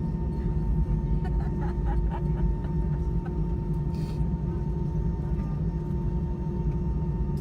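Steady low hum of an Airbus A319 cabin on the ground after landing, with a few constant tones from the engines and air-conditioning running underneath.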